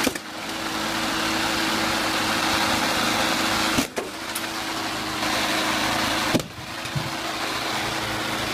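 Lawn mower engine running steadily with its blade spinning, under a loud, dense rushing hiss as spray paint cans are shredded and paint sprays out. The sound cuts off abruptly and resumes twice, about four and six and a half seconds in.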